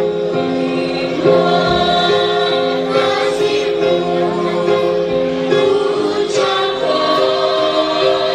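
Music with voices singing: sustained chords that shift every second or so.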